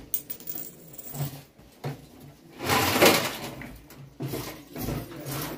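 Scattered small clicks and clinks of objects being handled, with a louder rustle lasting about a second near the middle.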